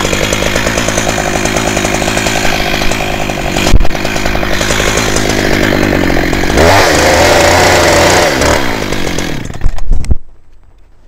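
Chainsaw cutting through a tree stem, the engine running steadily under load, its pitch wavering about two thirds of the way through. It gives a couple of louder bursts and then cuts off suddenly about ten seconds in.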